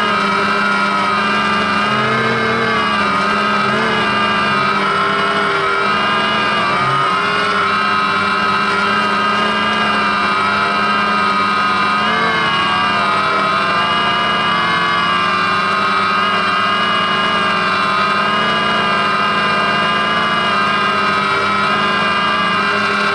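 DJI Phantom quadcopter's motors and propellers running in flight, heard up close from the camera it carries: a steady whine of several tones that wavers slightly in pitch as the rotor speeds shift.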